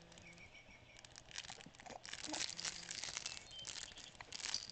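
Crinkling and rustling with scattered small clicks, as of something crinkly being handled close to the microphone, busier from about a second and a half in.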